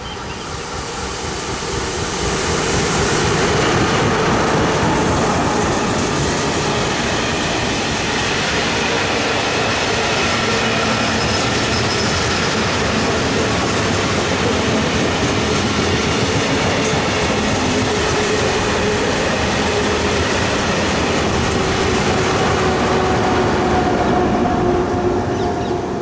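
Freight train passing close by at speed. The locomotive goes by in the first few seconds, then a long rake of loaded flat wagons rolls past with steady wheel-on-rail rumble and clatter and a faint wheel squeal. The sound drops away near the end as the last wagon clears.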